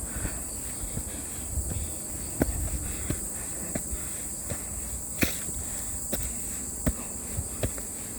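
Hiker's footsteps on a mountain trail, short crunching steps a little over one a second, over a steady high-pitched insect chirring.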